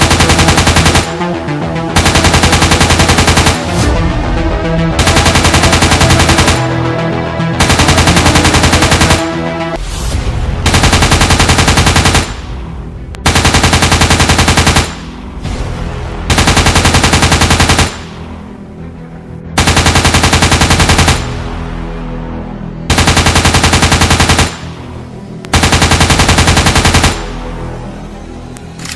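Repeated bursts of automatic rifle fire, about ten in all, each lasting a second or two and coming every two to three seconds, with background music between the bursts.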